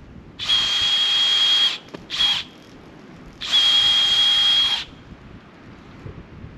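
Power drill with a 5/16-inch bit boring a taphole into a maple tree trunk. It gives a steady high whine in three runs: a run of over a second, a short blip, then another run of over a second.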